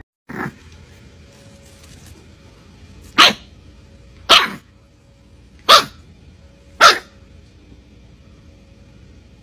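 A puppy barking: four short, sharp barks about a second apart, in the middle of the stretch.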